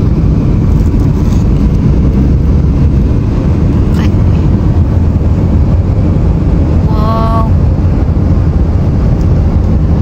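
Steady road and engine noise inside a moving car's cabin, a dense low rumble. A brief pitched sound cuts in about seven seconds in.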